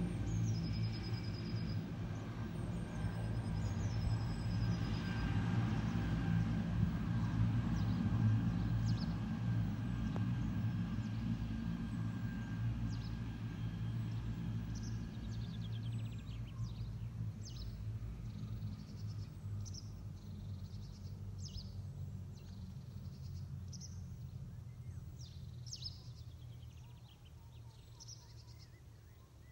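A low engine drone, loudest about eight seconds in and slowly fading away through the second half. Birds chirp above it, more often as the drone dies down.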